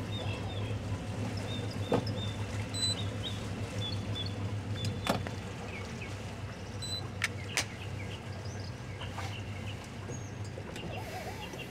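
A boat's engine running steadily at idle speed, a low even hum, with small birds chirping now and then and a few sharp clicks about 2, 5 and 7.5 seconds in.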